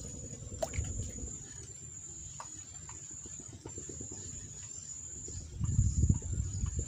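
A steady high-pitched insect trill, like crickets, runs throughout. Beneath it is a low, uneven rumbling noise that grows louder about two-thirds of the way through.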